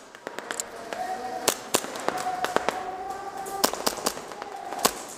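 Airsoft guns firing irregular single shots and short strings, sharp snapping cracks of shots and BB hits, with a steady held voice-like tone behind them.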